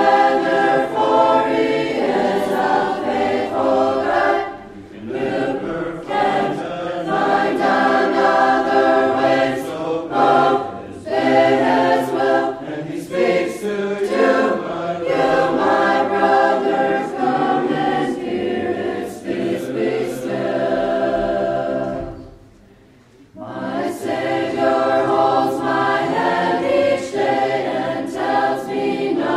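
Choir singing a Christian hymn in long phrases, with a short pause about two-thirds of the way through before the singing resumes.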